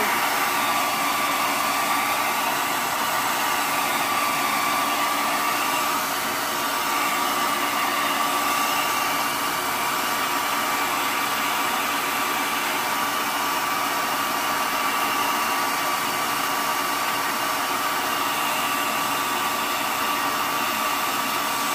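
Handheld hair dryer running steadily, blowing hot air: an even rush of air with a steady whine over it.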